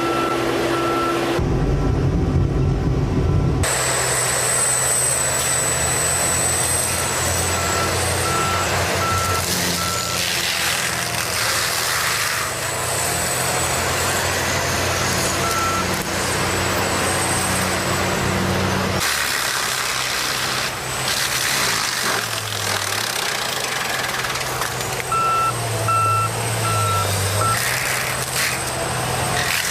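Heavy machinery engines running under load, with a reversing alarm beeping in short runs of about two beeps a second. The sound changes abruptly a few times, as between separate clips.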